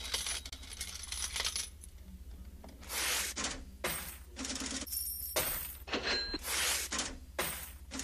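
A series of sharp metallic clinks, many with a short high ringing tone, coming about one every half second from a few seconds in, over a steady low hum.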